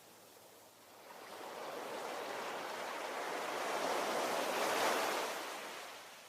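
Ocean waves: a wave builds from about a second in, breaks and rushes up loudest near five seconds, then washes back and fades toward the end.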